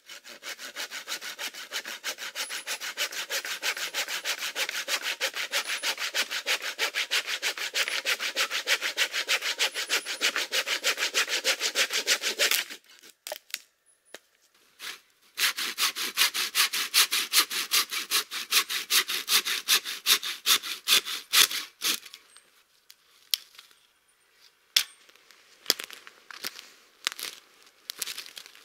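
Small hand saw cutting through a branch of a fallen tree, about four or five quick strokes a second in two bouts with a short pause between them. Near the end come scattered snaps and rustles underfoot in dry pine needles and twigs.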